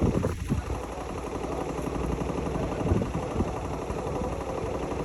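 Hotpoint-Ariston Aqualtis washing machine running, a steady motor hum with a few brief knocks from the drum, one just after the start and one about three seconds in.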